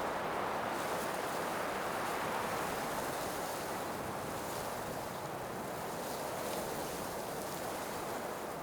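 Blizzard wind blowing as a steady, even rushing noise, easing slightly toward the end.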